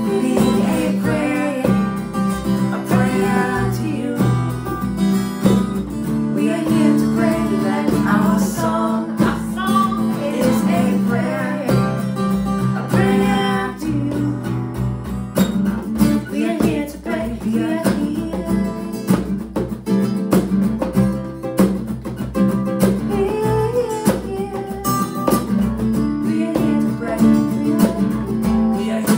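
Strummed acoustic guitar with a man and a woman singing together, and a hand drum patted with the palms keeping the beat.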